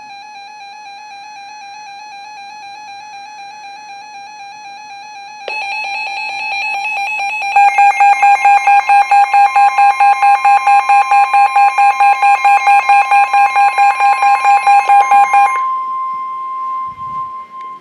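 NOAA Weather Radio alert tones from two stations overlapping, signalling a severe thunderstorm warning. A steady, slightly wavering tone is joined about five seconds in by a louder one. That tone turns to rapid beeping, about five beeps a second, over a steady higher warning tone, and the beeping stops shortly before the steady tone ends near the close.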